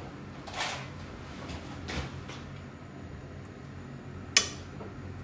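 Kitchen utensil handling at a nonstick frying pan: a few soft scrapes and knocks, then one sharp click of a metal utensil against the pan about four seconds in, over a low steady hum.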